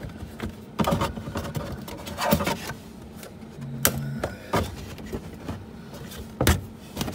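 Irregular sharp clicks and knocks of hard plastic trim being pushed and worked by hand, as the release tabs on a plastic air duct in a car's inner fender well are pressed, the loudest knock about six and a half seconds in.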